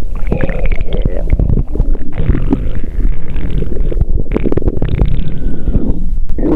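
Stomach growling: a loud, continuous run of gurgling rumbles that waver up and down in pitch.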